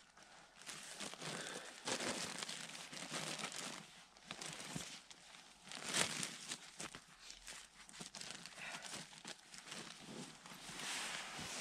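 Irregular crinkling and rustling of handled material, with a few short light knocks; the loudest rustle comes about six seconds in.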